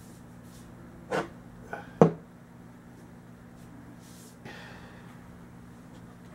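Metal cleaning rod worked through an air rifle barrel to run a patch: a short puff about a second in, a sharp knock of metal about two seconds in, then a brief scrape, over a faint steady hum.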